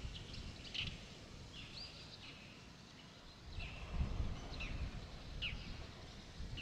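Birds chirping with short calls, several falling in pitch, repeated through the clip over a low, uneven rumble that swells about two-thirds of the way in.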